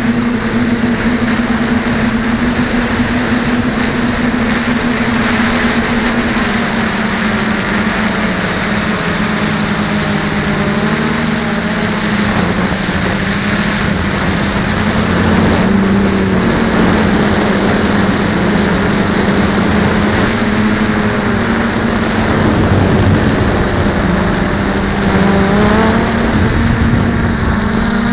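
DJI F450 quadcopter's brushless motors and propellers running in flight, a loud steady buzz heard from the onboard camera. Its pitch wavers up and down as the throttle changes.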